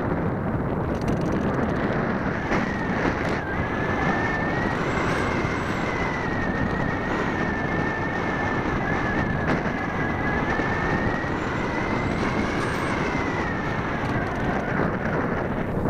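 Radio-controlled model airplane in flight, heard from a camera on its nose: a steady rush of air with the motor and propeller whining. The whine is a high tone that sets in about three seconds in and wavers slightly in pitch.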